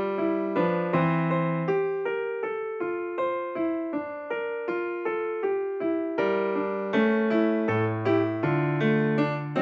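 Background music: a solo keyboard tune of evenly paced notes, about three a second, each fading after it is struck.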